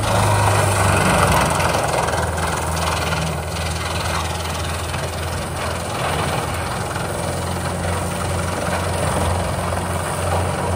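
Tracked whole-tree wood chipper running under load: a steady low diesel drone under a dense grinding of wood as its grapple feeds a tree trunk into the chipping disc, with a few sharp cracks of the wood a couple of seconds in.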